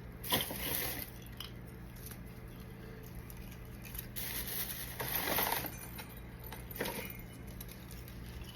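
Christmas ornaments being handled: a few brief clinks and rustles, loudest about five seconds in.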